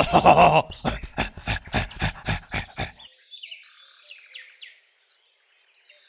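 A cartoon bear's excited voice, then a fast patter of running footsteps, about six a second, fading away. Faint bird chirps follow.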